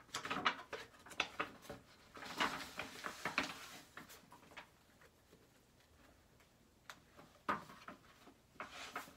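Pages of a paper planner being flipped and rustled by hand. A quick flurry of page rustles and soft taps comes in the first few seconds, then a few more near the end.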